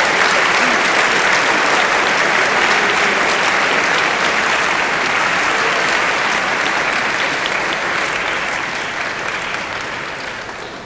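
Large audience applauding steadily, dying away over the last couple of seconds.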